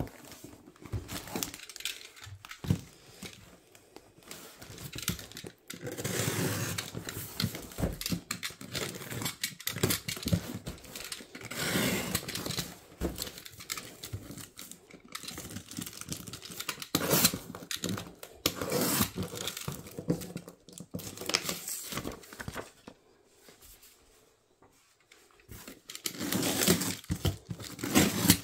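Cardboard parcel being handled while its packing tape is slit and torn open with a utility knife: irregular scraping, crinkling and tearing, with a short lull about three quarters of the way through.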